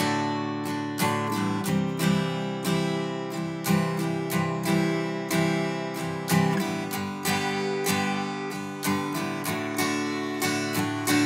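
Acoustic guitar strummed in a steady, repeating rhythmic pattern of chords.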